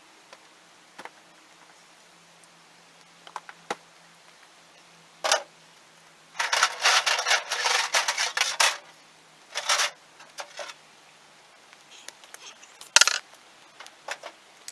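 Metal clinks, scrapes and knocks as a length of steel rebar is handled and set against concrete bags and rock, with a long spell of scraping in the middle and one sharp knock near the end.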